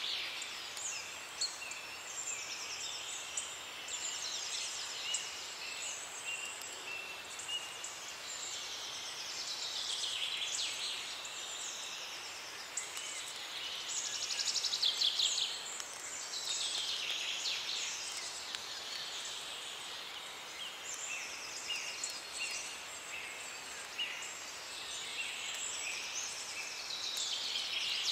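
Dense chorus of birdsong: many overlapping high chirps, rapid trills and falling whistles, continuous and steady in level.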